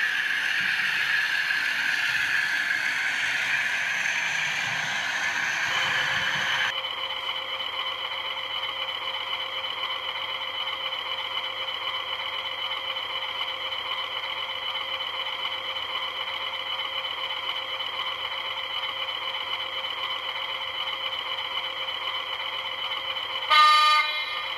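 Model diesel locomotives on a model railway: first a model train running past on the track, with motor and wheel noise. After a cut, a steady idling diesel sound, and near the end a short horn blast lasting about half a second, typical of a sound-fitted model Class 20.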